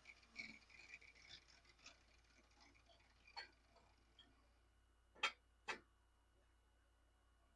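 A few light, sharp clicks and taps spread out, with two louder clicks about half a second apart past the middle, over faint room noise.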